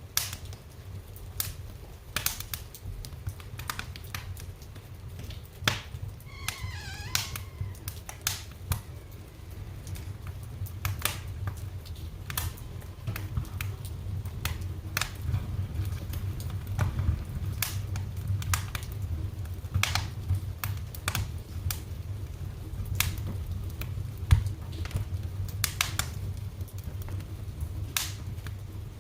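Wood fire crackling in a fireplace: irregular sharp pops and snaps over a steady low rumble, with a brief wavering whistle about seven seconds in.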